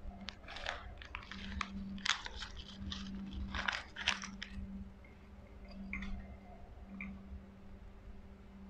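Irregular crunching noises close to the microphone, thick for the first four seconds or so and only a few after, over a low steady hum.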